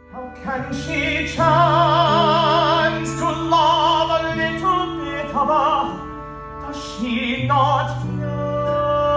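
Live stage-musical music: sustained low accompaniment notes under a melody of long notes held with vibrato, the melody moving to a new pitch every second or so.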